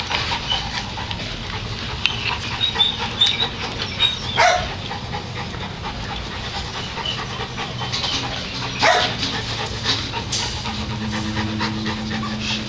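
American Pit Bull Terrier puppies panting, with a few short high squeaks and scattered small knocks. A low steady hum joins near the end.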